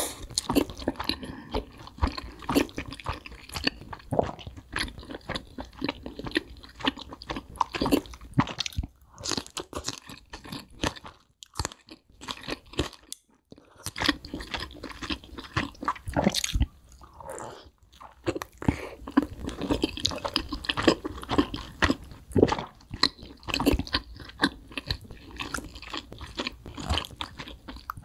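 A person biting and chewing crispy fried chicken wings, the breaded skin giving many sharp, irregular crunches, with a few brief pauses between mouthfuls.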